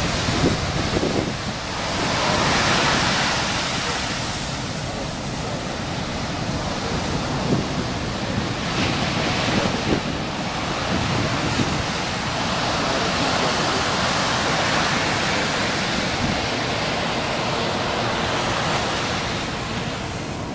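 Heavy surf of large waves, around twenty feet, breaking and washing in, swelling louder and easing in long surges. Wind buffets the microphone throughout.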